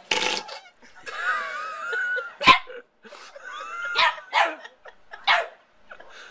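Small dog barking in sharp yaps, about five times, with a high, wavering whine between the first two.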